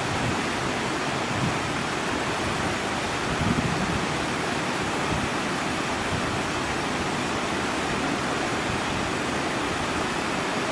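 Fast mountain stream rushing over rocks in white-water rapids, a steady even rush of water.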